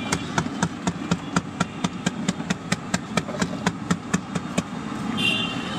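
Quick, even slaps and taps, about four a second, as bhatura dough balls are pressed and flattened by hand on a large steel platter, over a steady low rumble.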